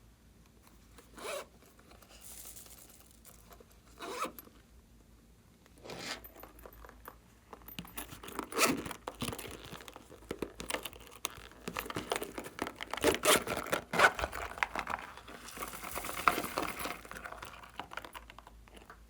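Glossy slime being handled and mixed, giving sticky crackling, tearing and popping sounds. They come singly at first, then fast and dense through most of the second half.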